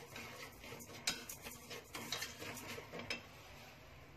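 Chopsticks stirring and scraping coarse salt as it dry-roasts in a stainless-steel pot, with the grains rasping and the sticks clicking against the metal. The salt is being dried out until it turns white. The stirring thins out and stops near the end.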